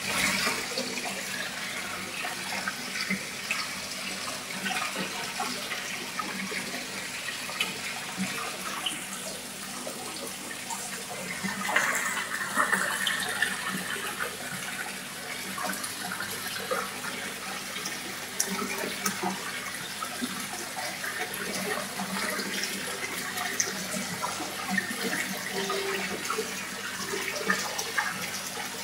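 Water running and splashing in a koi pond: a steady rush with many small splashes and drips, a little louder around twelve seconds in.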